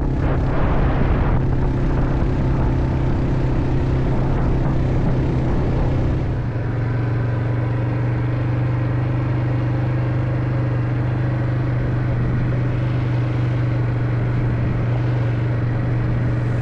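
A vehicle engine running at a steady speed, a continuous low hum, with a rushing noise that is loudest in the first second or so.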